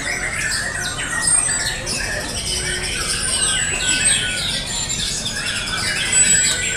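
Many caged white-rumped shamas (murai batu) singing at once: a dense, overlapping chorus of chirps, trills and high whistles.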